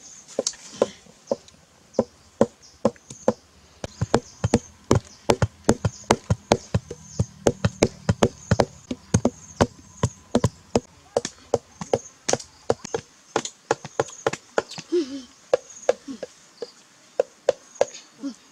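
Knife blade chopping wood: a long run of sharp, irregular knocks, about two to four a second. Insects buzz faintly in a high, on-and-off tone behind them.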